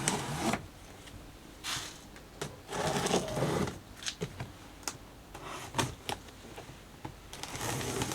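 Cardboard box being opened and handled: irregular scraping and rustling of the cardboard and packing, with scattered knocks and clicks.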